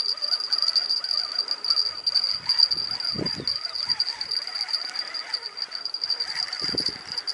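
Steady high-pitched insect chorus buzzing, with two short low bumps about three and seven seconds in.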